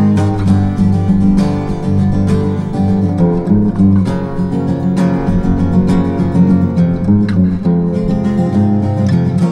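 Acoustic guitar playing an instrumental piece, chords strummed in a steady rhythm.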